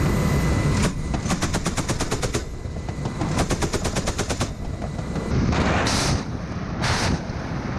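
Helicopter-mounted gun firing two bursts of about a second each, roughly ten shots a second, then two unguided rockets launched from an underwing pod, each a short rushing blast. Steady rotor and wind noise runs underneath on the outside-mounted microphone.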